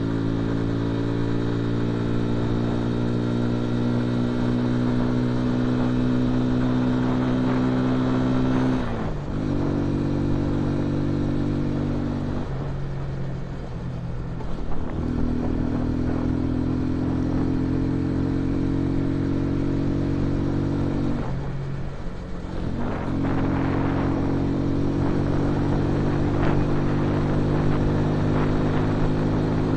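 Dayun Flasher 200 motorcycle engine running under way, heard from the rider's seat, its note slowly rising as it pulls. The note falls away briefly three times and picks up again.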